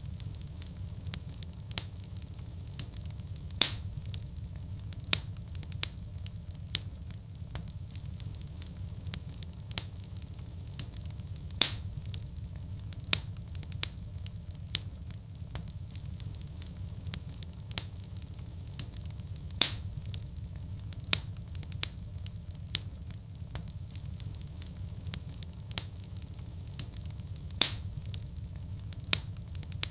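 Wood fire in a fireplace crackling steadily over a low rumble, with frequent small snaps and a louder pop about every eight seconds.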